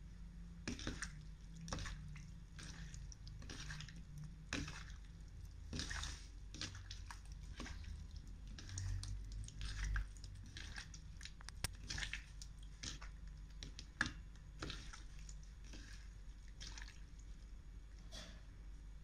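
Raw peeled shrimp squeezed and rubbed by hand in water in a plastic bowl: irregular wet squelches and small splashes, over a faint low hum.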